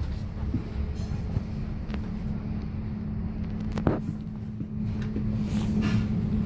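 Interior noise of a double-deck regional train coach: a steady low rumble with a constant hum, and a sharp click just under four seconds in.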